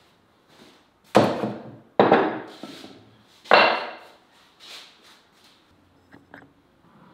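Earthenware dishes set down on a wooden table: three loud knocks, each with a short ringing fade. A couple of faint clicks of fingers on the clay spice pots near the end.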